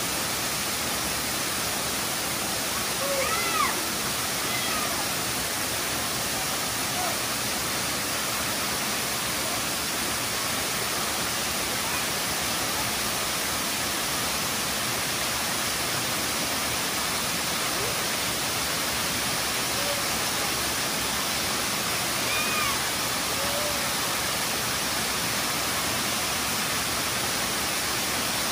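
Tall waterfall spilling down a rock face: a steady, unbroken rushing hiss of falling water.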